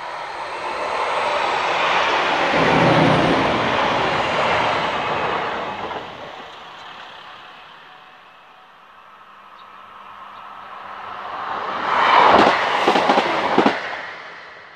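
A Greater Anglia Stadler FLIRT multiple unit passes at speed, loudest about three seconds in and fading away by six seconds. A Class 158 diesel multiple unit then approaches and passes close by, loudest near the end, with a run of sharp wheel clacks over the rail joints.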